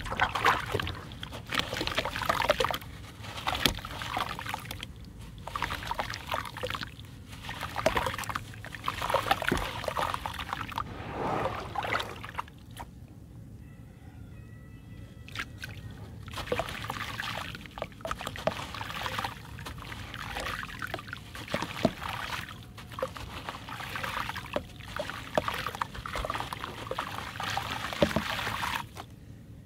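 A gritty sand block dipped and crumbled by hand in a basin of water, the water sloshing and splashing in bursts. Handfuls of wet crumbled grit trickle and pour from the fingers back into the water. There is a quieter pause in the middle.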